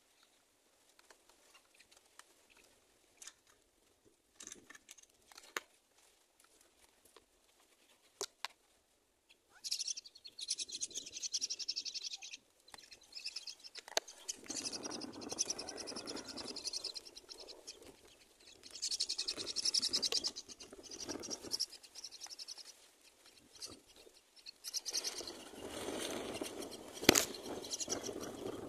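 Myna nestlings begging in four bursts of a few seconds each, the first about ten seconds in, with scattered faint clicks before it and one sharp click near the end.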